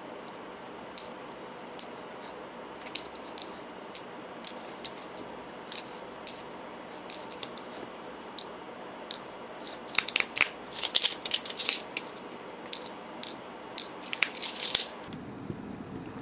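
Small metal nail-art charms and metal tweezers clicking and tapping against a clear plastic compartment case as the parts are sorted into it. The ticks are scattered at first, then come in quick clusters about ten seconds in and again near the end.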